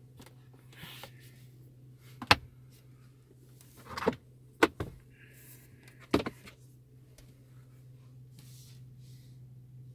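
A handful of short plastic clicks and knocks from a Hyundai Grandeur's center console as its storage compartment and trim are handled, the sharpest about two seconds in and others around four and six seconds, over a low steady hum.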